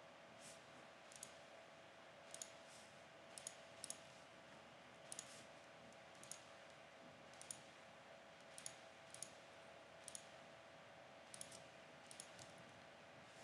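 Computer mouse buttons clicking: short, sharp clicks at irregular intervals, often in quick pairs. A faint steady hum runs underneath.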